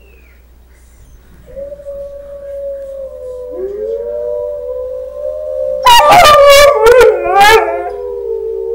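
Long, steady, overlapping wolf howls begin about a second and a half in. About six seconds in, a dog close by joins with a loud, wavering howl lasting about a second and a half.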